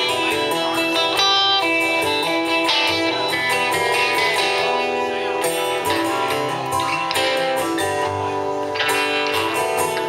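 Live acoustic and electric guitar duo playing together: a steel-string acoustic guitar strummed while an electric guitar picks ringing melodic notes over it.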